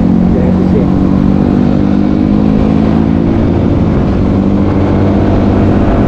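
A motor vehicle's engine running steadily while under way, with a low road rumble; its pitch drifts slowly, sinking slightly partway through.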